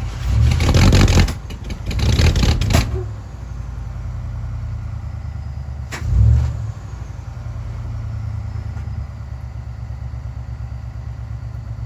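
A vehicle engine running steadily at idle. Two loud surges come in the first three seconds, then a sharp click and a short surge about six seconds in.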